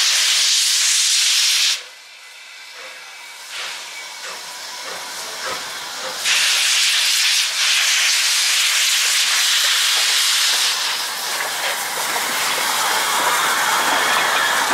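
Steam hissing from the cylinder drain cocks of a C10 steam tank locomotive as it moves slowly: a loud blast for about two seconds, a quieter few seconds with light knocks, then a second long loud blast from about six seconds in to about eleven. The hiss then carries on a little lower as the engine comes close.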